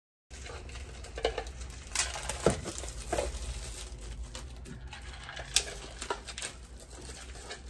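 Instant ramen cups and plastic zip bags being handled on a kitchen counter: scattered light knocks and clicks with crinkling, over a low steady hum.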